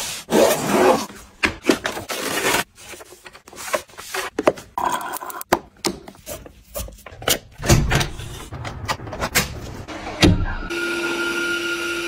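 Household handling noises: a run of taps, knocks and clicks mixed with rubbing and scraping. Near the end a steady electrical hum with two held tones comes in, then stops abruptly.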